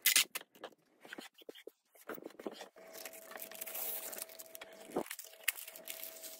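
Brown plastic packing tape being handled and peeled from a sheet of paper: a short sharp rip at the start, scattered clicks and paper crinkles, then a steady hiss of tape pulling away for a couple of seconds, with a faint steady tone underneath.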